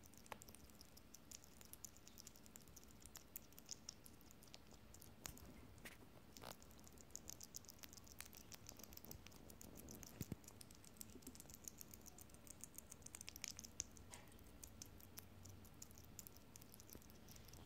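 Pet hedgehog eating soft baby food: faint, rapid wet clicks of its mouth chewing and smacking, with a few louder clicks among them.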